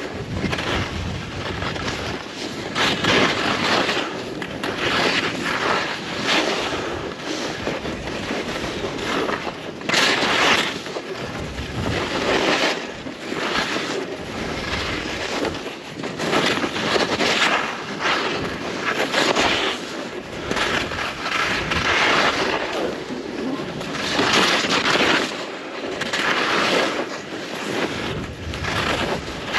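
Skis carving down groomed, packed snow: a scraping hiss that swells with each turn about every two seconds, with wind rushing over the microphone.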